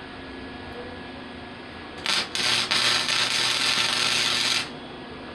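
Electric arc welding a tack weld: a brief arc strike about two seconds in, then a steady hiss for a bit over two seconds that cuts off suddenly.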